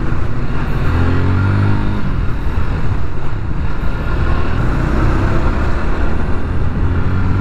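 GPX Demon GR200R motorcycle's single-cylinder engine running while the bike moves through traffic, its revs climbing about a second in, with wind and road noise and surrounding traffic.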